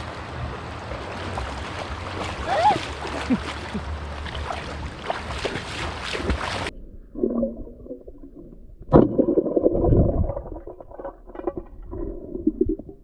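Rushing river water with splashing, then a sudden switch to the muffled, gurgling sound of being underwater in the river, with a sharp knock about nine seconds in.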